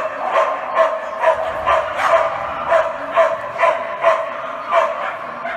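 A dog barking over and over in an even, rapid series, about two to three barks a second.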